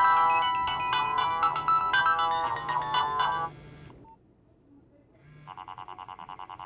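Nokia 1112 mobile phone ringtones playing. A melody of quick electronic notes ends about three and a half seconds in. After a short pause a new ringtone starts, a rapidly pulsing repeated tone.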